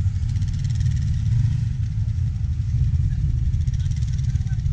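Quad ATV engine running steadily at low speed as it rolls across grass, with a constant low rumble.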